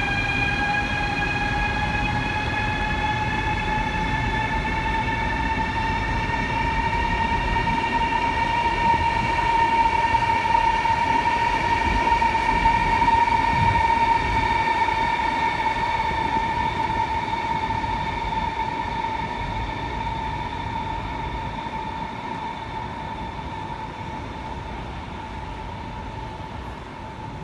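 A train running: a steady whine that rises slightly in pitch over the first ten seconds, over a low rumble. It grows loudest about halfway through, then gradually fades.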